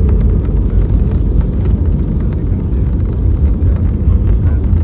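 Airbus A320neo cabin noise: a loud, steady low rumble of the engines and rushing air, with faint light rattles.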